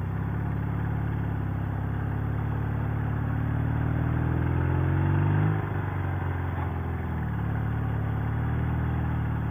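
Sidecar motorcycle engine pulling away in first gear, its revs climbing for about five seconds. About five and a half seconds in, the revs drop at a gear change, and the engine settles into steady running.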